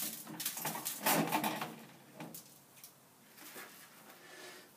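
Wire cooking racks of a Masterbuilt 30-inch electric smoker clinking and rattling as racks of ribs are slid onto them. There is a sharp click at the start, a busier clatter in the first second or so, and then a few lighter clicks.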